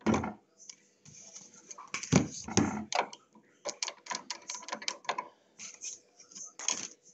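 Irregular clicks, taps and light knocks as a cutting die and card scraps are handled and set up on a manual die-cutting machine.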